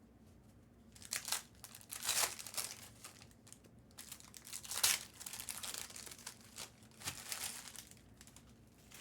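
Crinkling and tearing of trading-card pack wrappers as they are torn open, in several short bursts about a second or two apart, the loudest near the middle.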